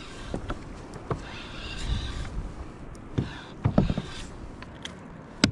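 Fishing reel being cranked in short spells as a small hooked fish is wound in, with a few sharp knocks, the loudest near the end.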